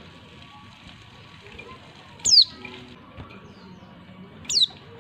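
Female white-eye (pleci) giving two short, sharp calls about two seconds apart, each dropping steeply in pitch. Keepers use this call to provoke male white-eyes into calling and singing.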